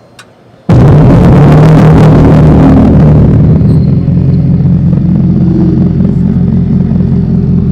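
Fratzonic Chambered Exhaust of the Dodge Banshee electric muscle-car concept, a synthetic exhaust note made by pumping air through a tube like an organ pipe rather than a speaker. It switches on suddenly under a second in with a loud rev-like blast, then settles from about four seconds into a steady, pulsing idle-like drone.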